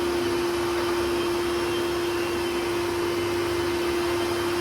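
Miracle Mate canister vacuum cleaner running steadily, its motor giving a constant hum over the rush of airflow.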